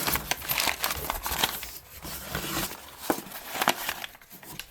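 Packaging being opened and handled, rustling and crinkling with scattered light clicks and knocks. It dies down near the end.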